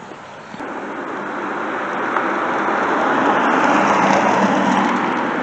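A car passing by on the street: a rushing noise that swells to a peak about four seconds in, then begins to fade.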